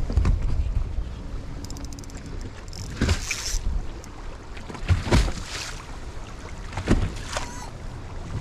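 Wind buffeting the microphone and water lapping against a boat hull, a steady low rumble. A few brief, sharper noises break through it, roughly every two seconds.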